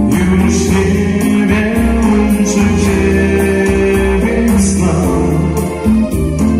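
Live retro pop song performed through a PA system: an electronic keyboard playing sustained chords over a steady programmed beat, with a voice singing.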